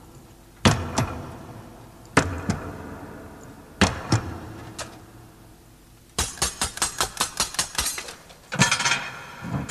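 Loud, resonant knocks, singly and in pairs, each ringing on briefly. About six seconds in they become a quick run of about a dozen knocks, with a few more near the end.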